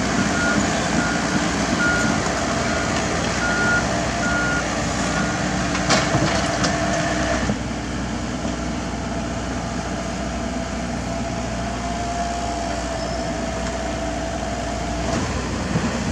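Komatsu PC78US mini excavator working, its diesel engine running steadily, while a warning alarm beeps about seven times over the first five seconds. A clank comes about six seconds in. Around seven and a half seconds the engine eases to a softer, lower-load note.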